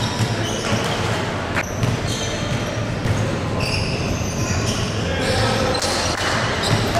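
Basketball game in play on an indoor court: a ball bouncing, sneakers squeaking on the floor, and voices of players and crowd, with a sharp knock about a second and a half in.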